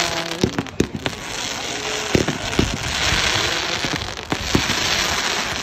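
Display fireworks rockets going off: a continuous hiss with many sharp bangs scattered through, the hiss heaviest in the middle.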